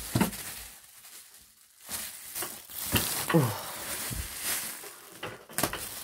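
Packaging being pulled off a new Hoover Purepower upright vacuum cleaner: irregular rustling and clicks of handled plastic, with a short lull about a second in.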